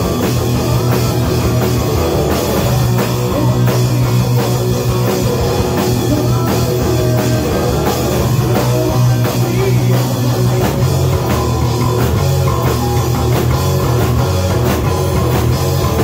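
Live rock band playing loud and steady: Les Paul-style electric guitar, bass guitar and drum kit, with no singing.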